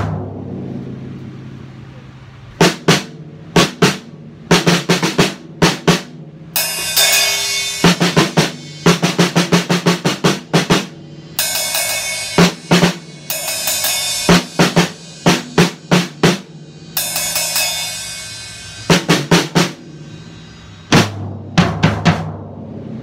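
Acoustic drum kit played in short runs of quick strokes on the snare and toms, with bass drum hits and several stretches of crashing cymbal ringing between the fills.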